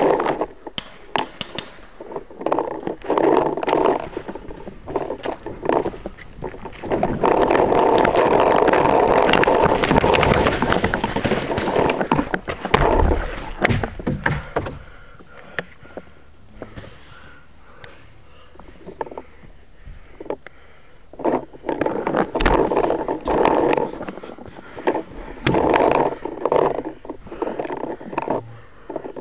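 Paintball player's heavy breathing and rustling close to the camera microphone, in breaths of about a second each, with a longer loud stretch of rustling near the middle. Scattered sharp knocks and clicks come through.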